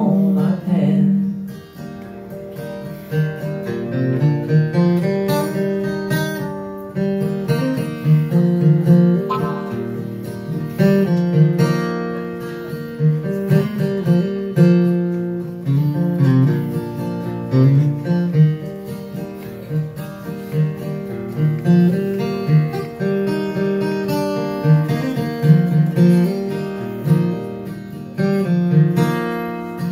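Steel-string acoustic guitar playing an instrumental break in a country song, a picked melody over bass notes and strummed chords, with no singing.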